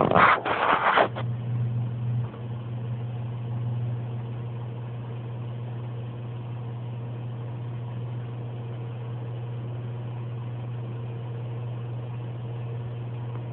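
Steady low electric hum of an aquarium pump, unchanging throughout. A brief burst of rustling noise in the first second is louder than the hum.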